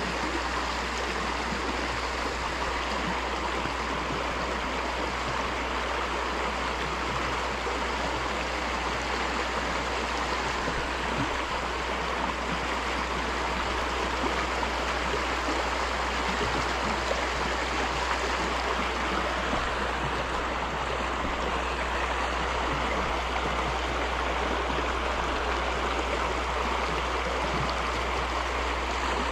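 A small stream rushing over rocks in a shallow riffle, a steady, even wash of water.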